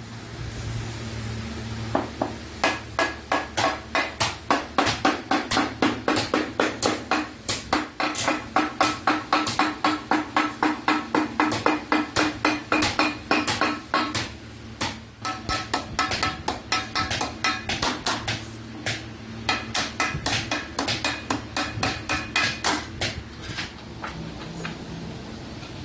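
Hammer striking iron sheet metal in a long run of rapid, even blows, about three a second, each with a short metallic ring. There is a brief pause about halfway through before the hammering resumes, and the blows thin out near the end.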